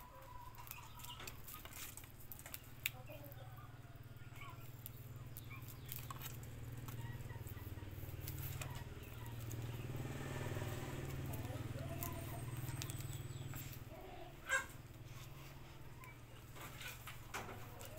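Faint clicks and rustles of a plastic strip being wound around the bound grass head of a small handmade broom, over a steady low hum that swells slightly in the middle, with a few faint bird calls.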